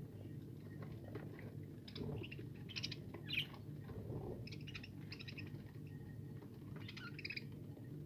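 A flock of budgerigars chirping in short scattered calls, with light clicks of birds pecking at seed. A steady low hum runs underneath.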